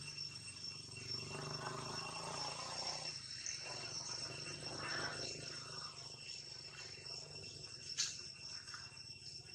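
Steady, high-pitched drone of insects, with a sharp click about eight seconds in.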